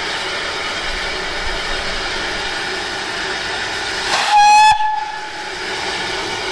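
Hunslet saddle-tank steam locomotive Linda's whistle giving one short, single-pitched blast about four seconds in, over a steady hiss.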